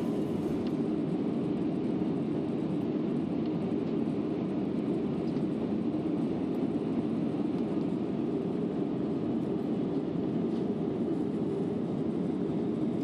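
Steady cabin noise of an airliner in flight, an even rush heard from inside the cabin with no change in level.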